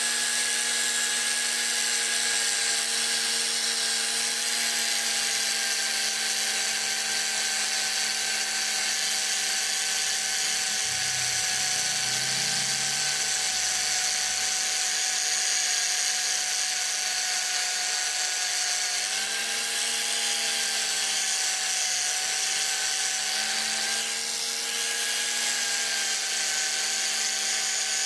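Bosch angle grinder running steadily with a polishing pad, buffing a steel scissor blade: a loud, constant motor whine whose pitch dips slightly twice in the second half.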